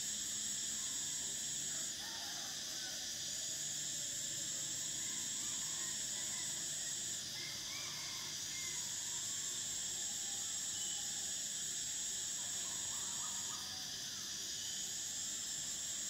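Cicadas singing in a high, steady buzzing chorus that eases off briefly about three times, with a few faint chirps underneath.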